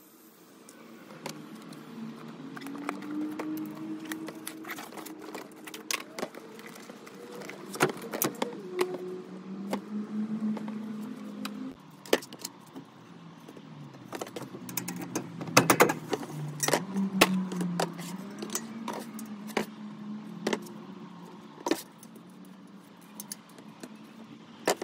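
Quick clinks, clicks and rattles of bicycle parts and tools being handled while a rear wheel's tyre is stripped and the rim wiped, over a low hum that wavers in pitch.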